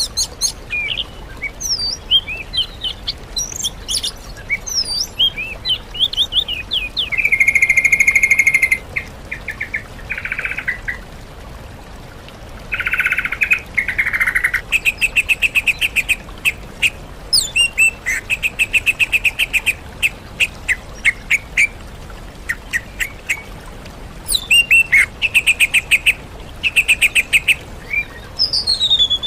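Recorded songbird song: yellow-vented bulbul (trucukan) mixed with oriental magpie-robin and greater green leafbird phrases. It is a busy run of quick chirps and sweeping whistles, broken by rapid buzzy trills, some held for a second or two.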